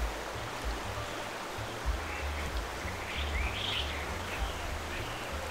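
Stream water rushing steadily, with a low uneven rumble underneath and a bird chirping a few times in the middle.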